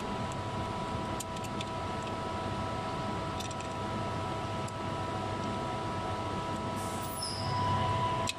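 Steady workshop background hum with a few faint steady tones, broken by a few light clicks and taps from hand work on the engine; the hum swells slightly near the end.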